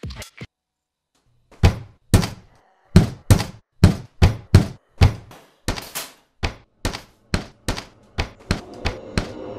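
Heavy, repeated banging on a door, the blows coming faster and closer together as it goes on.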